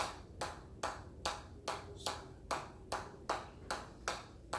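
Steady, evenly timed hammer blows, about two and a half a second, each with a short high ring.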